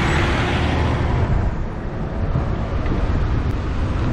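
A heavy flatbed crane truck passing close by, its noise fading away over the first second or so, then steady wind rumble on the microphone of the moving bicycle.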